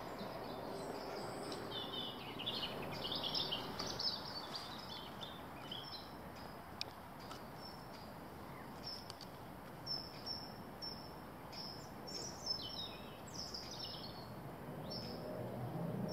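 Small songbirds singing, short high chirps and phrases scattered throughout, over a faint steady outdoor background noise.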